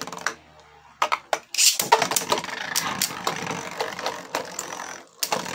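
Two Beyblade Speed Storm tops, Kolossal Helios and Cursed Satomb, spinning in a plastic Bey Stadium. They make a steady whirring rasp with many sharp clacks as they strike each other and the stadium walls. The sound gets louder from about a second in.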